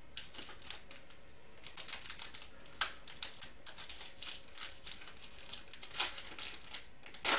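Foil trading card pack wrapper crinkling and crackling in the hands as it is torn open, with a sharper snap near the middle and another near the end.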